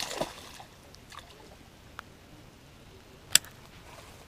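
A hooked fish splashing briefly in shallow pond water at the bank right at the start, followed by a small click about two seconds in and one sharp, loud click a little after three seconds.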